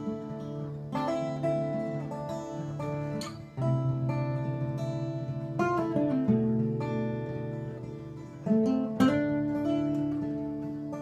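Two acoustic guitars played together: strummed chords ringing out, with a fresh strum every second or two and a few notes sliding in pitch.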